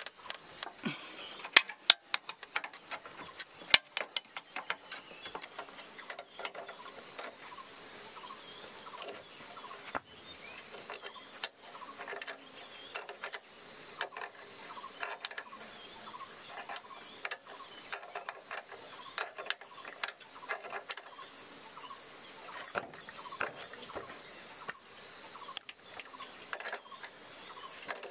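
Irregular sharp clicks and light taps of hand work, loudest in the first few seconds, over a faint steady high-pitched tone.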